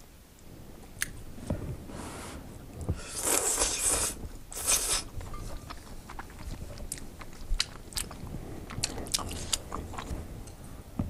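Close-miked eating of udon noodles: two loud slurps about three and four and a half seconds in, then chewing with many wet mouth clicks.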